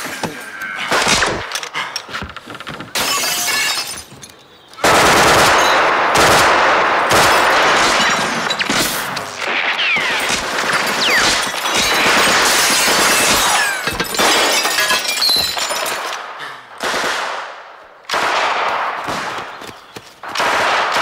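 Film gunfight: rapid, near-continuous bursts of automatic gunfire from machine guns and submachine guns, with short lulls about four seconds in and again near the end.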